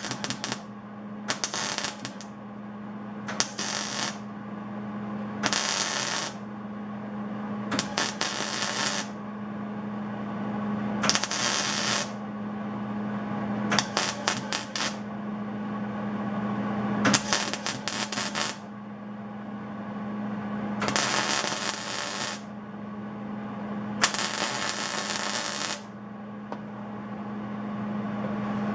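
MIG welder laying weld on a steel wrench head in about ten short bursts of one to two seconds each, the arc crackling on each burst and stopping between them, to fill in the uneven top of the head.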